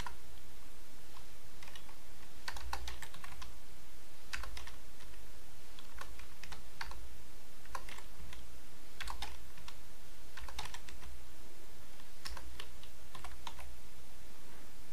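Computer keyboard typing in short bursts of a few keystrokes, every second or two.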